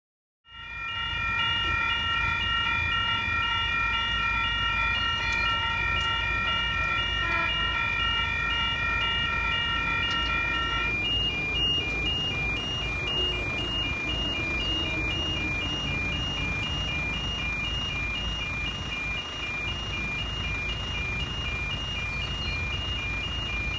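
Level crossing warning alarm sounding as a train approaches, with its booms down and red lights flashing. It starts as a steady, ringing multi-tone sound, and about 11 seconds in changes to two tones alternating back and forth at an even rhythm, over a constant low rumble.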